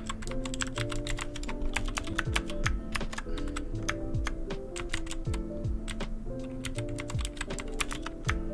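Typing on a 60% mechanical keyboard with clicky blue switches: a quick, irregular run of sharp key clicks over background music with a bass line and beat.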